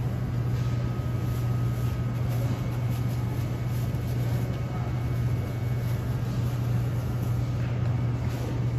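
Steady low machine hum of a supermarket's open refrigerated produce case and store ventilation, with a few faint light ticks.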